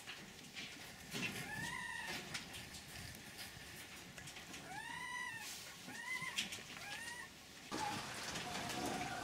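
Caged farmed fox whining: four short rising-and-falling whines, the longest and loudest about five seconds in, among scattered faint clicks.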